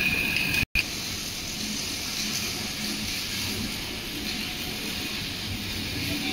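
Steady hissing factory workshop noise, broken by a split-second gap under a second in.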